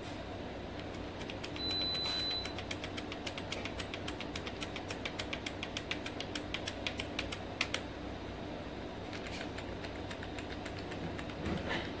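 Computer keyboard: the same key tapped over and over in a quick, even run lasting about six seconds, typing a long string of one letter. A short high beep sounds about two seconds in.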